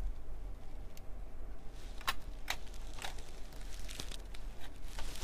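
Paintbrush dabbing thick paint through a small stencil onto a metal jewellery piece: a few soft, irregular clicks and taps over a low steady hum.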